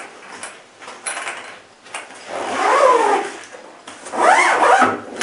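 Soft nylon rifle case being handled: two rasping pulls, each rising and then falling in pitch, about two and four seconds in, over lighter rustling of the fabric.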